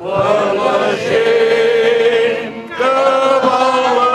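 A group of men and women singing a Catalan song together from song sheets, in several voices, with a long held note and a short breath break about two and a half seconds in before the next phrase.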